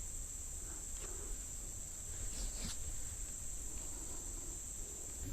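Insects droning in a steady, high-pitched, unbroken tone.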